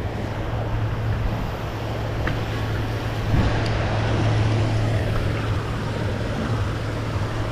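Steady low hum with rushing water noise from a pond aerator spraying water, with a couple of faint clicks a few seconds in.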